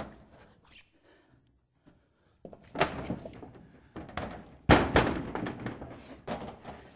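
Wooden sauna wall panel being pushed and knocked into place against the neighbouring panels: a run of wooden thuds and knocks, with the loudest about two-thirds of the way through.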